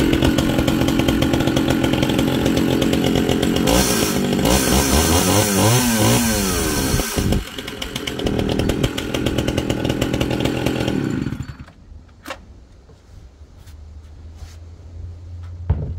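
Small two-stroke chainsaw running, revved up and down several times in the middle, then shut off about two-thirds of the way through. A few light knocks follow.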